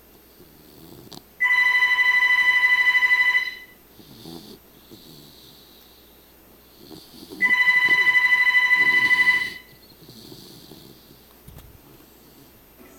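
A telephone rings twice, each ring about two seconds of a fluttering electronic tone, the second starting six seconds after the first. Between the rings a red-nose pit bull snores faintly.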